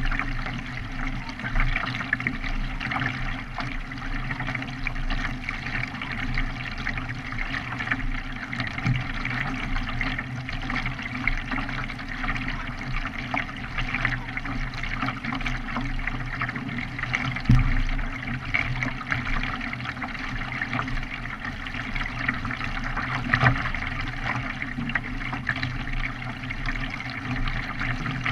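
Water splashing and rushing against a K1 racing kayak as it is paddled, steady throughout with a couple of brief louder splashes.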